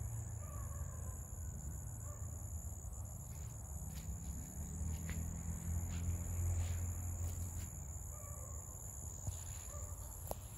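Insects trilling steadily at a high pitch over a low rumble that grows louder a little past the middle.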